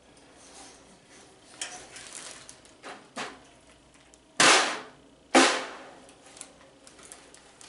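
PDP snare drum with Remo heads struck twice by hand, about a second apart, each hit sharp with a short ring, after a few lighter taps and handling knocks.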